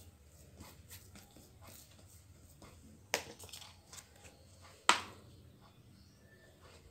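Faint handling sounds of hands shaping bread dough on a wooden board, with two sharp knocks about three and five seconds in, the second louder.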